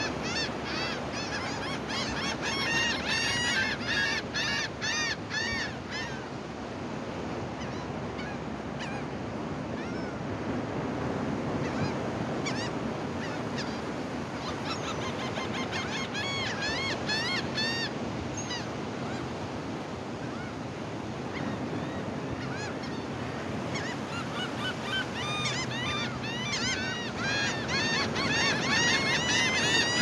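Gulls calling in bouts of short, repeated, arched cries, loudest near the start and near the end, over the steady wash of surf.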